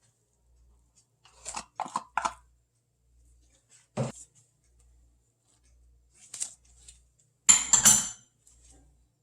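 Kitchen handling noises during food preparation: three quick scraping strokes, a single knock, then a louder clatter of utensils near the end.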